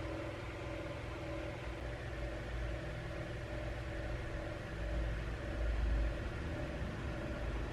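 Steady low rumble with a faint hum, swelling briefly about five seconds in; no typewriter keystrokes are heard.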